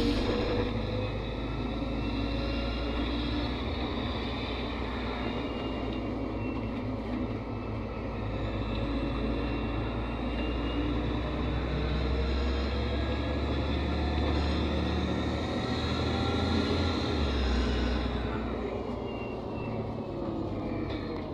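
NefAZ 5299 city bus under way, heard from inside: its Cummins ISBe diesel engine and Voith automatic gearbox running under a low road rumble, with whines that rise and fall in pitch as the bus speeds up and slows.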